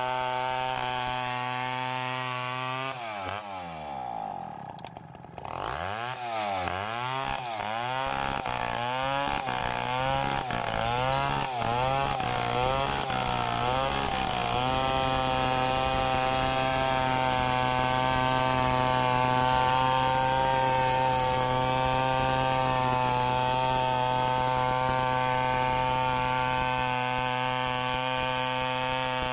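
Tecomec two-stroke chainsaw ripping lengthwise through a coconut log. A few seconds in the engine drops almost to idle, then revs up and down over and over for about eight seconds. It then holds a steady high note as the chain cuts along the log.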